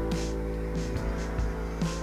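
Background music with held chords over a steady bass.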